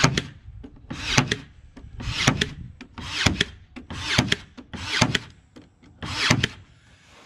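Ryobi 18V One+ AirStrike cordless brad nailer firing 18-gauge brads into a wood strip in contact (bump) mode, trigger held and nose pressed down for each shot. Seven shots about a second apart, each a sharp crack with a short hiss.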